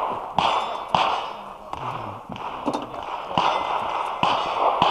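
A person's short, rushing breaths close to the microphone, with a few light clicks from handling a rifle.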